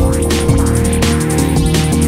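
Background music: an electronic track with a steady beat.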